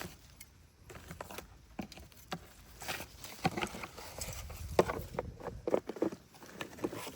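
Footsteps and rustling in ground litter, with irregular taps and crunches, sparse at first and busier and louder from about halfway through.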